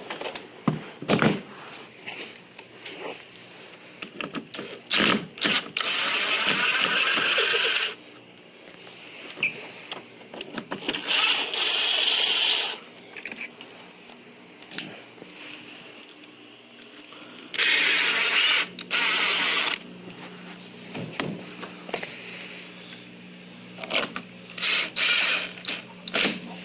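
Power drill turning the screws of a door strike plate, running in several bursts of one to two seconds, with clicks and knocks from handling between them.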